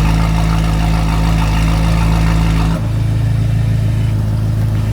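BMW F90 M5's twin-turbo V8 running at a steady speed through a catless straight-piped exhaust with its valves open, loud and deep. The tone changes and thins about three seconds in, and the exhaust turns much quieter at the very end as the valves close.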